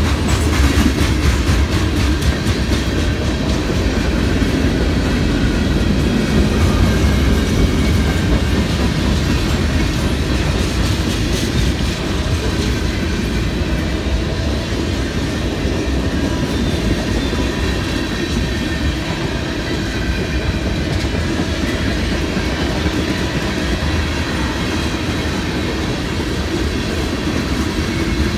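Freight cars of a Norfolk Southern mixed freight train rolling past close by: a steady rumble with the clatter of wheels over the rails.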